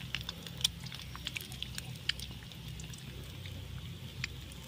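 Eggshells cracking and small taps of shell and fingers against a black iron kadai as eggs are broken into it: scattered light clicks, sharpest near the start, over a steady low hum.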